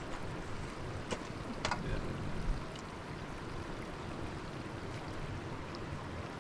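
Steady outdoor rushing noise, with a couple of light clicks about a second and a second and a half in from eating off a metal tray.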